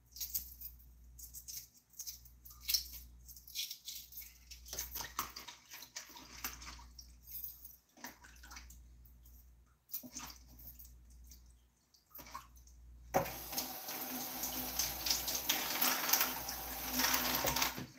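Shells of hard-boiled eggs crackling and clicking as they are peeled by hand at a sink, then a kitchen faucet running steadily for the last few seconds.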